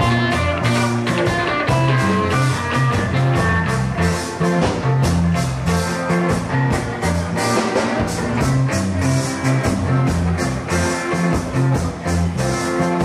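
Loud dance music with a fast, steady percussion beat and a stepping bass line.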